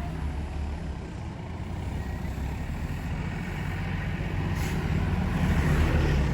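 Large diesel tour bus engine running as the bus draws nearer, growing steadily louder, with a short hiss about four and a half seconds in.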